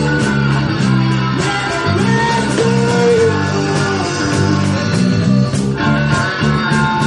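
Live rock band playing a blues-rock number, with guitar prominent.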